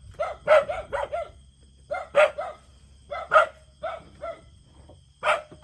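A dog barking repeatedly: about a dozen short barks in quick runs of two or three.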